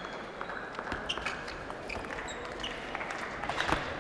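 Table tennis rally: the ball clicks sharply and irregularly off bats and table, over the steady murmur of a large arena hall.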